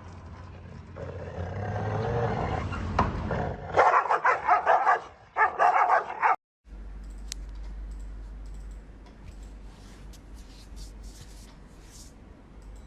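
A pet growling, then a quick run of loud, short calls that cut off abruptly; after that only faint clicks.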